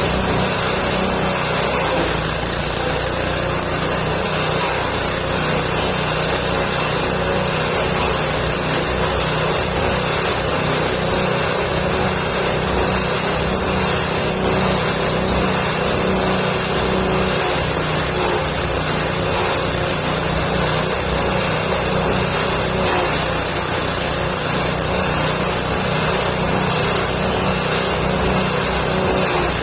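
Engine-driven forage chopper running steadily, a small engine's hum with slight dips in pitch now and then, as it shreds leafy branches into goat feed.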